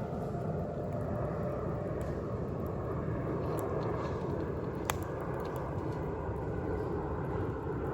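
Wood campfire burning, with a few faint crackles and one sharp pop about five seconds in, over a steady low background noise.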